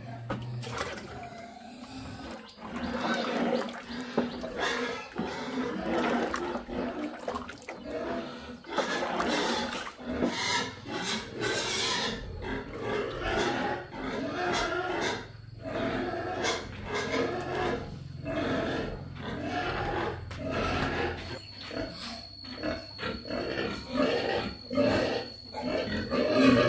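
Penned pigs squealing and grunting in irregular, overlapping calls, the noise of pigs waiting to be fed. The calls start a couple of seconds in and keep up densely.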